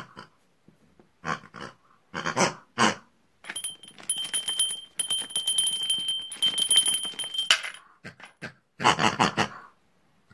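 A chrome desk bell rung rapidly over and over for about four seconds, its ring held steady under the repeated strikes. Before and after come short grunting, oink-like voice bursts for the toy pig characters.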